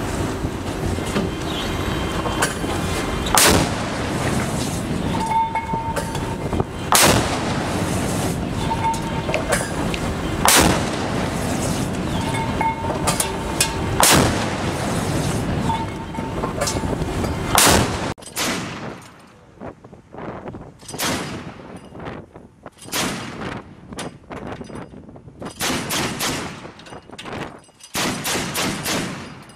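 A destroyer's 5-inch deck gun firing single heavy rounds about every three and a half seconds, five in all, over steady wind and sea noise. After about 18 seconds, a deck-mounted machine gun fires several short bursts.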